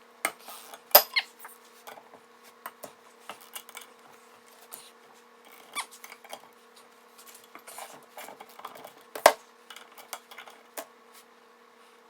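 Metal engine parts clinking and knocking as VW Type 1 1600 connecting rods are handled on the crankshaft, in scattered taps with two sharper clanks, about a second in and near nine seconds.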